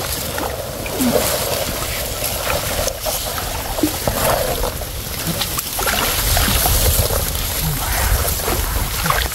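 Water splashing and sloshing as people wade waist-deep in a canal, handling a gill net, with faint scattered voices. A low rumble grows louder from about six seconds in.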